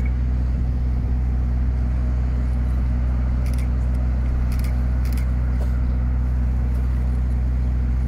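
An engine idling with a steady low hum that does not change, with a few faint clicks in the middle.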